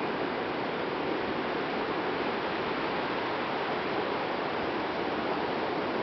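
Sea water washing over rocks along the shore, a steady, even hiss with no separate wave breaks.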